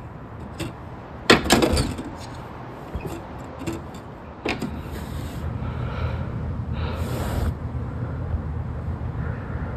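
Window-shutter slats clacking a few times as a hand pushes them apart. About halfway through, a steady low hum comes in.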